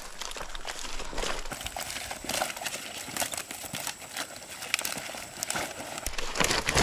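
A collapsible hooped mesh keep net rustling and scraping as it is handled on dry, stony ground, with the carp inside flapping and thudding in an irregular run of knocks and slaps.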